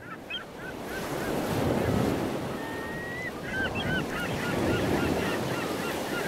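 Steady wash of surf fading in at the start, with many short, repeated honking bird calls over it and one longer, level call about halfway through.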